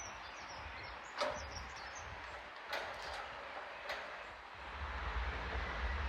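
Quiet outdoor background with three faint clicks spread over the first four seconds. A low rumble builds in the last second or so.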